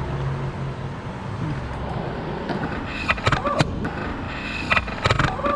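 A small power tool's motor whirring in short runs while fasteners are taken off a car's underside, with sharp metallic clicks and taps from the tools.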